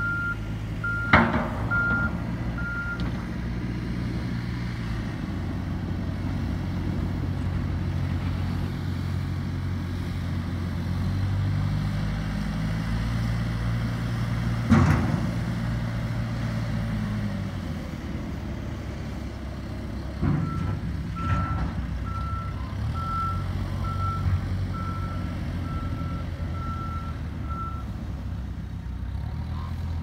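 Case backhoe loader's diesel engine running under load while plowing snow, revving up and easing back about halfway through. Its reversing alarm beeps steadily at the start and again for several seconds in the second half, with a few sharp knocks.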